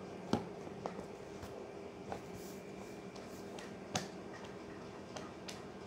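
Printed study-note books being handled in a cardboard box, giving a few scattered sharp clicks and taps, the loudest near the start and about four seconds in, over a steady low hum.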